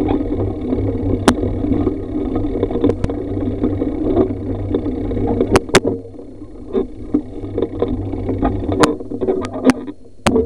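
A bicycle with a WeeHoo trailer bike riding over gravel: a steady low rumble of road and wind noise, with scattered sharp clicks and knocks from the bikes and the camera mount rattling over the bumps.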